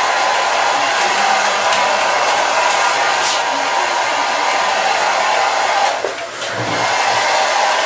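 Handheld hair dryer running with a steady rushing blow. It dips briefly about six seconds in, then comes back at full strength.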